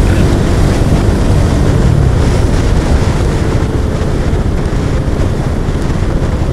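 Wind rushing over the microphone of a moving Bajaj Dominar motorcycle, with the engine running under it. The engine note drops about two seconds in.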